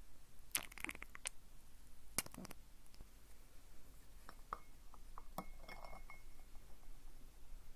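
Ink stick and stone inkstone being handled: scattered light clicks and clinks of hard pieces touching, a few close together near the start and more spread out later, with one short faint ring midway.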